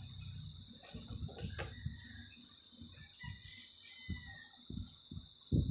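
Soft knocks and rubbing from hands handling earbuds and cable close to the microphone, the loudest about five and a half seconds in. Under them runs a steady high-pitched insect-like drone, with a few faint chirps in the middle.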